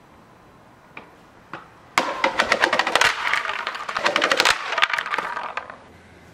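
Skateboard clattering down a flight of tiled stairs: a fast run of hard knocks from the wheels and deck striking step after step, starting about two seconds in and lasting about three seconds. A couple of light clicks come before it.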